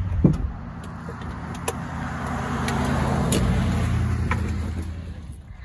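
A motor vehicle running, its engine hum and road noise swelling to a peak about halfway through and then fading. A brief rising squeak comes near the start.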